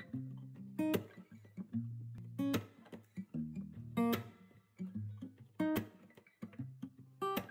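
Instrumental intro of a song on acoustic guitar: picked notes and strummed chords in a steady rhythm.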